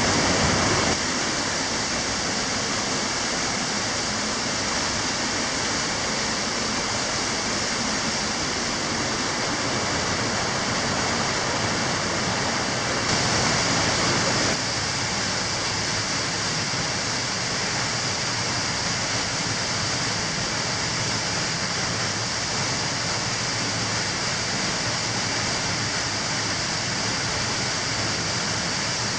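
Underground cave stream cascading over rocks: a steady rush of water, briefly louder about thirteen seconds in.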